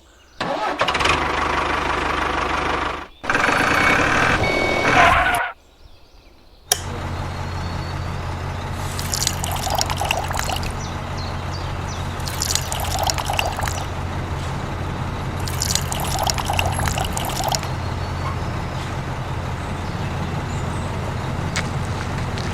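Liquid being poured in two bursts, then a small electric motor starts a little after halfway through the first third and runs with a steady low hum.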